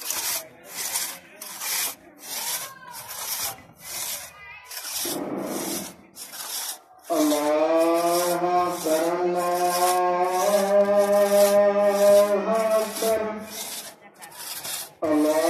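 Two-man crosscut saw cutting through a standing tree trunk by hand: a rasping stroke with each push and pull, about two strokes a second. From about halfway in until shortly before the end, a louder held pitched tone that steps in pitch a few times sounds over the sawing.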